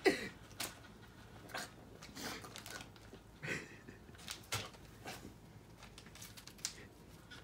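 Short breathy huffs from a person, about eight of them spread out with quiet gaps between, mixed with faint rustling.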